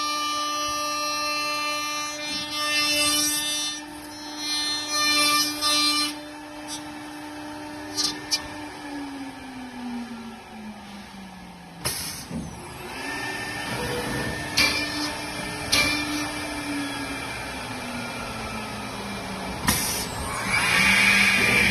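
CNC horizontal drilling machine for wood panels running, with a steady motor whine whose pitch slides down a few times and short sharp clicks now and then.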